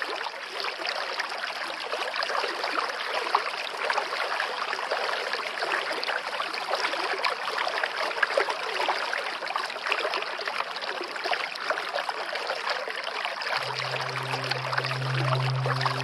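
Running water, a steady stream-like rush and trickle. A low steady tone joins near the end.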